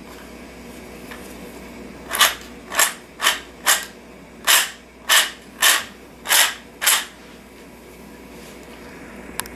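Nine short plastic-on-plastic rasps, about two a second, from the 3D-printed engine model's internal parts being worked by hand in the block, then a single click near the end.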